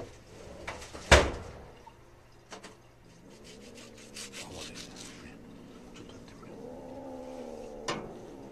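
A sharp knock about a second in, a few faint ticks midway, then a long-haired stray mother cat growling low and drawn-out near the end as a gloved hand reaches toward her.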